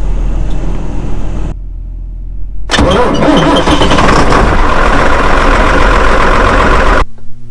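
A farm tractor's diesel engine idling, then going quieter about a second and a half in. Just before three seconds a second tractor diesel is cranked and catches, running loud and steady until the sound cuts off suddenly about seven seconds in.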